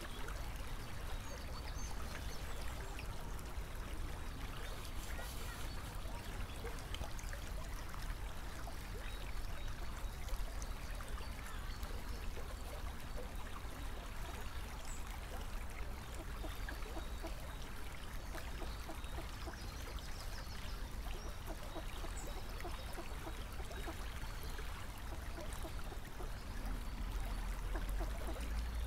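Steady trickling of flowing water, with a low rumble underneath that swells slightly near the end.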